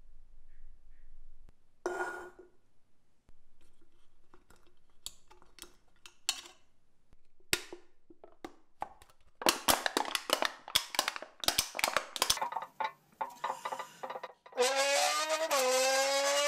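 An aluminium drink can handled and squeezed by hand: scattered clicks, then a dense run of sharp metallic crinkles for about three seconds. Near the end a loud, sustained brass-like tone starts, sliding up in pitch and then stepping between notes.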